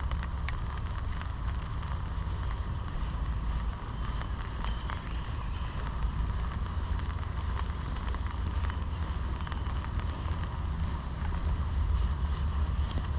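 Rain falling: scattered drop ticks over a steady hiss, with a low rumble of wind on the microphone.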